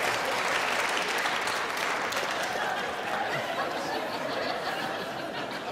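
Audience laughing and applauding, the noise slowly dying down.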